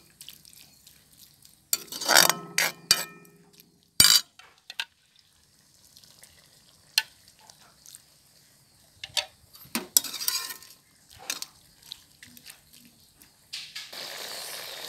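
Steel ladle scraping and knocking against a metal wok while stirring a wet tripe stew. There are several sharp clanks, one ringing on briefly about two seconds in. Near the end a steady sizzle starts up as steam rises from the pan.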